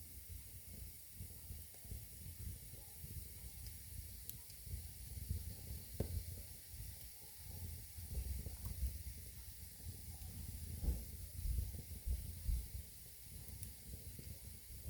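Wood fire burning in a fireplace: a steady hiss over a low, uneven rumble from the flames, with scattered crackles and one sharp crack about six seconds in.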